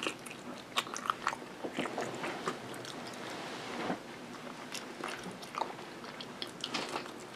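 A person biting and chewing food: barbecue chicken, then cornbread, with scattered small mouth clicks throughout.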